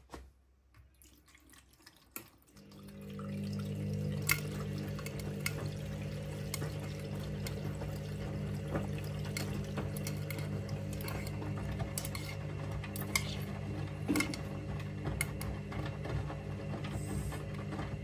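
Candy Smart front-loading washing machine in its wash cycle: about two and a half seconds in, the drum motor starts with a steady hum and turns the drum, the wet laundry tumbling and sloshing, with occasional sharp clicks.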